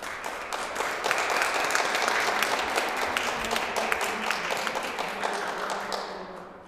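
Audience applauding: a dense patter of many hands clapping that builds over the first second, holds, and dies away near the end.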